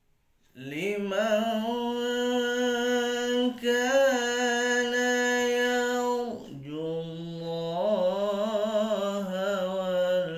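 A man's voice in slow, melodic Quran recitation, drawing out long vowels. After about half a second it holds one steady note for several seconds, breaks off briefly around six seconds, then moves to a lower note with wavering ornaments.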